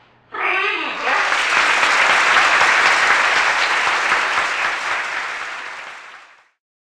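A green-winged macaw gives a short call just after the start, then applause runs for about five seconds and fades out near the end.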